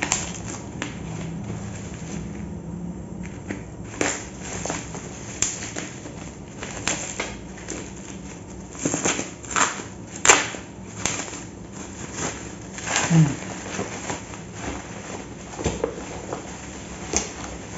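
Plastic packaging being cut open with scissors and handled: black bubble wrap and a plastic mailer crinkling, with irregular sharp crackles and snips.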